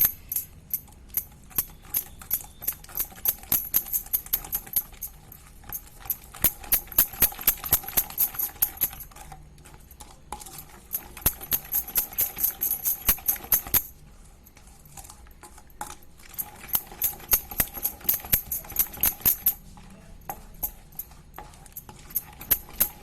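A spoon stirring a thick spice-and-yoghurt marinade paste in a bowl, clinking against the bowl about four times a second in runs of several seconds with short pauses between them.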